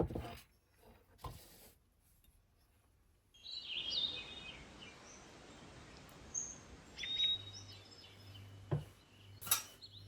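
A couple of soft knocks, then about three and a half seconds in a steady outdoor background hiss comes in, with small birds chirping a few times over it. A few more knocks come near the end.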